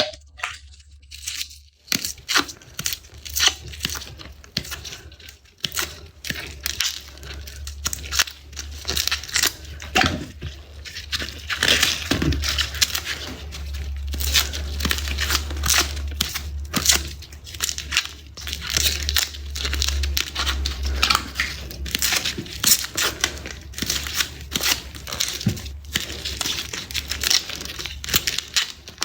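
Garlic being peeled by hand: the dry papery skins crackle and tear in a dense run of quick, irregular crisp crackles.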